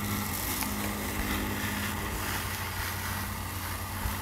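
A steady engine-like hum, with the rustle of a large paper sticker being peeled off a steel griddle top.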